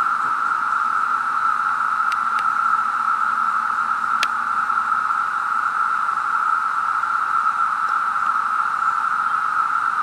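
Loud, unbroken chorus of periodical cicadas in the surrounding trees: a steady, high droning hiss that does not let up. A faint click or two cuts through it about two and four seconds in.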